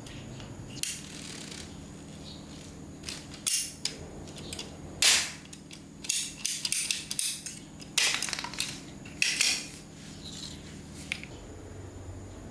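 Irregular clinks, knocks and short scrapes of metal tools and fittings being handled during plumbing installation work, over a steady low hum.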